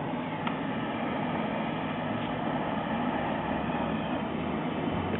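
Oxy-acetylene rosebud heating tip burning with a steady, even rushing noise, heating seized lug studs to free them.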